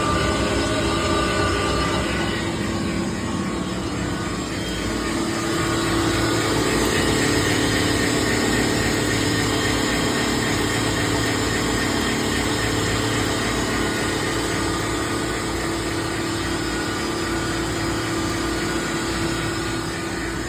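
Hollymatic 180-A commercial meat mixer grinder running steadily, its electric motor humming with a continuous mechanical drone.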